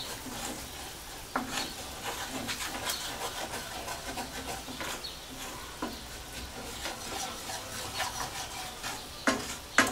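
Wooden spoon stirring and scraping a bubbling butter-and-flour roux in a stainless steel skillet over a steady sizzle, the roux cooking on medium-high heat for pan gravy. There are two sharper knocks of the spoon against the pan near the end.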